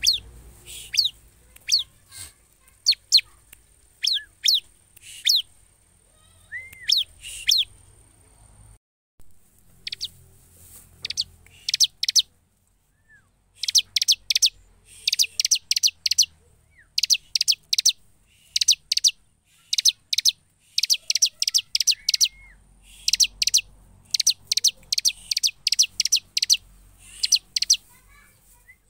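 Bar-winged prinia (ciblek) calling. It starts with single sharp, high chirps sweeping downward, spaced about a second apart. From about halfway it gives quick bursts of rapid chirps, repeated every second or so.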